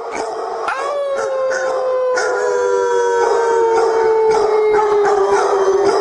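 A dog howling: one long, drawn-out howl that steps up in pitch under a second in, then slides slowly downward.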